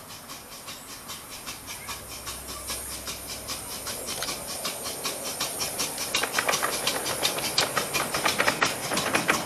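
Miniature ride-on steam locomotive modelled on the LMS Coronation class no. 6220 'Coronation' working a passenger train: a fast, even run of exhaust chuffs over steam hiss, growing louder as it approaches.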